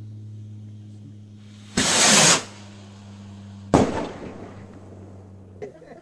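A 1.3G Heat Seeker firework rocket launching with a short rushing whoosh about two seconds in, then a sharp bang as it bursts about two seconds later, fading away over a second.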